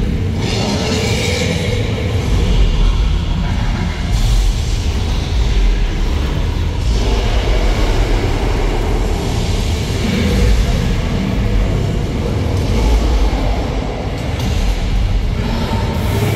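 Loud immersive 3-D ride soundtrack heard from aboard a studio tour tram: a continuous deep rumble with music mixed in.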